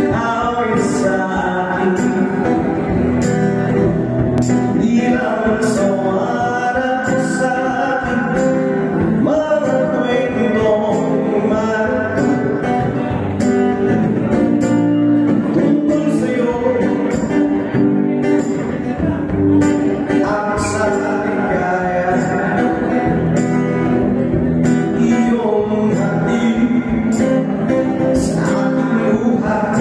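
Live band music: a man singing, amplified, over a strummed acoustic guitar, with a steady beat.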